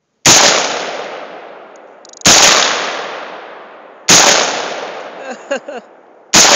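Four shots from an AR-15 rifle, about two seconds apart, each followed by a long echo that trails off.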